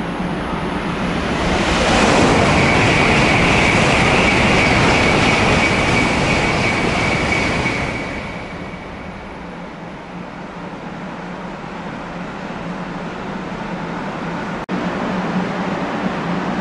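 Shinkansen high-speed train passing through the station at speed: a rushing sound that builds about a second and a half in, stays loud with a steady high ringing note for about six seconds, then dies away.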